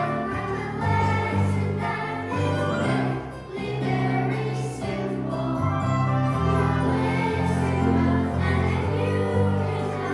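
A choir singing a song with sustained, changing notes throughout.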